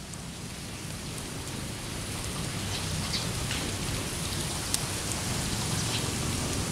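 Heavy tropical rain falling steadily, with scattered drips ticking; a low rumble underneath, and the whole sound grows gradually louder.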